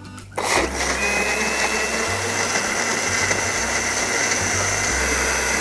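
Electric countertop blender switched on about half a second in and running steadily, blending chopped dragon fruit with sugar and water into a drink, with a steady high whine over the motor noise.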